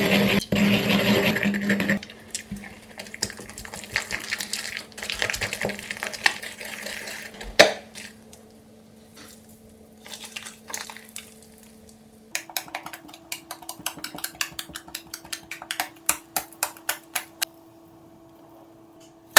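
Slime being mixed and worked by hand. A steady rush of mixing for about the first two seconds, then scattered scrapes and clicks of stirring, and from about two-thirds of the way through a run of quick crackling clicks.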